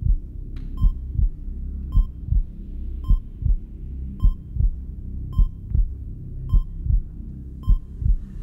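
Heartbeat sound effect played over a PA: a low double thump (lub-dub) about once a second, each beat led by a short high heart-monitor beep, over a steady low hum.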